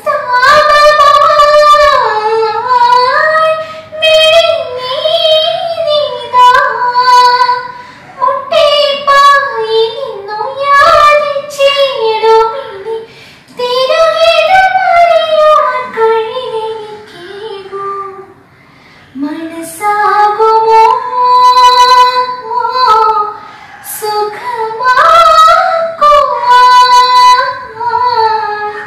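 A young woman singing a Christian devotional song solo and unaccompanied, in long phrases with short pauses between them.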